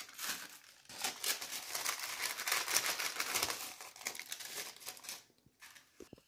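Crinkling and rustling of the thin paper sheets that hold edible silver leaf (varq), handled and peeled away as the leaf is pressed onto a sweet. It is dense and crackly from about a second in, then dies away about a second before the end.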